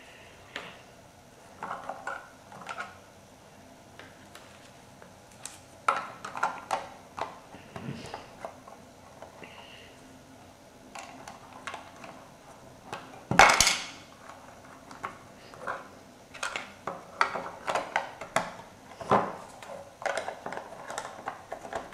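Plastic LEGO plates clicking and clattering as they are picked from a loose pile and pressed onto the tank's roof. The sounds come in irregular bursts, with one loud clack about halfway through.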